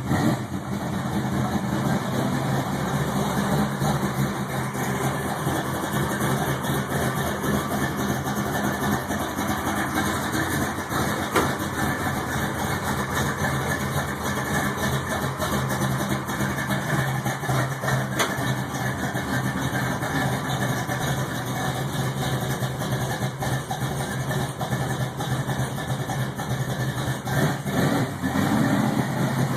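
Engine of a Chevrolet El Camino bracket-racing car idling steadily, with a brief rise in pitch near the end.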